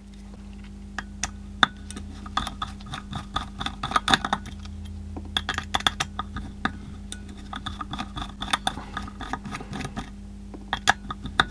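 Small hand screwdriver clicking and scraping against the screws of a hard drive's platter clamp as they are worked loose, with light metallic clinks of tools and parts throughout. A steady low hum runs underneath.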